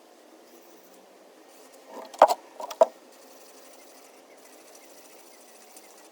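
Knife blade stroked on a sharpening stone: a faint rasping hiss in slow strokes, with a few sharp clacks a little past two seconds in.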